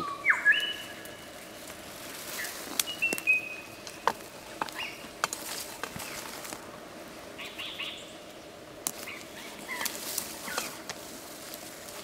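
Male superb lyrebird singing his display song: short clear whistles, some held level and some falling, scattered among sharp clicks.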